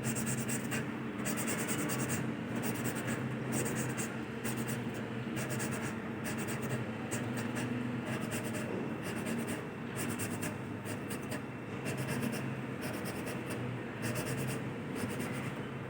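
Engine valve being hand-lapped into its seat in an Isuzu 6BG1 cylinder head: rhythmic gritty scratching of lapping compound as the valve is twisted back and forth, done to seal a leaking valve. A steady low hum runs underneath.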